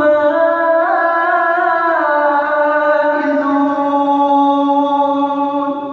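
A man reciting the Quran in melodic tajweed style, holding one long drawn-out note with small ornaments, its pitch stepping down a little about halfway through.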